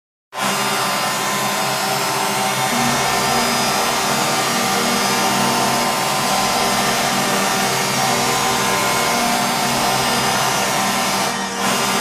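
Hockey arena goal horn for the Victoriaville Tigres, sounding one long, steady, multi-tone blast over a noisy wash. It starts abruptly and breaks off for a moment near the end.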